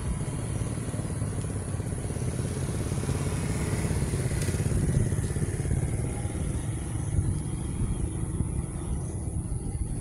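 Steady low outdoor rumble, with no distinct events.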